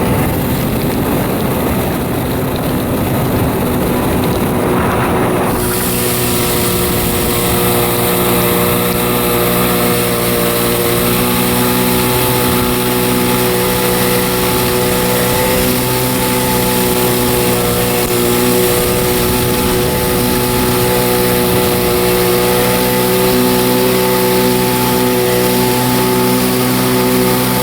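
A 1993 Kawasaki 650SX jet ski's two-stroke twin running at steady speed on the water. For the first few seconds a rushing noise covers it; then the engine's steady, pitched drone comes through clearly.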